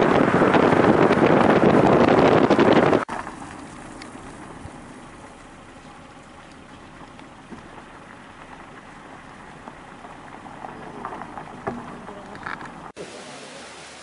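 Waterfall: water falling onto rock, a loud steady rushing. About three seconds in it cuts abruptly to a much quieter, steady rush of water with a few faint ticks.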